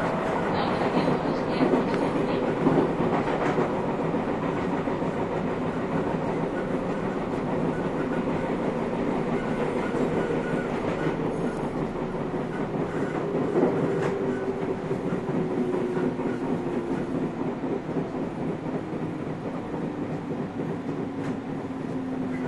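Running noise inside the motor car of a JR 221 series electric train: wheel and rail rumble with a few clacks over rail joints in the first seconds, under the hum of the traction motors and gears. In the second half the motor and gear hum falls steadily in pitch and the noise eases, as the train slows.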